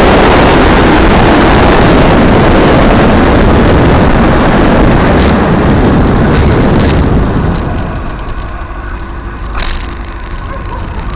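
Honda motorcycle on the move, with loud wind rush and engine noise on the dash-mounted camera's microphone. About seven seconds in the bike slows and it goes much quieter, leaving the engine running at low revs, with a few short clicks.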